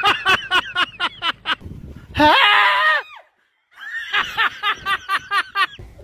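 Rapid bursts of laughter, broken about two seconds in by a short high scream. After a brief silence, more quick bursts of laughter follow.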